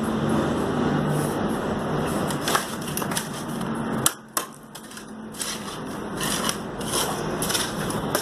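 Gritty crunching and scraping of sandy mortar being worked by hand beside a stone stair tread as it is set, coming in irregular strokes over the second half. Before that a steady background rumble with a low hum.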